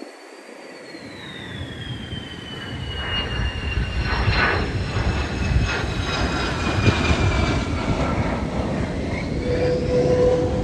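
Military jet flying overhead: a high engine whine falling slowly in pitch as it passes, over a deep rumble that builds over the first few seconds.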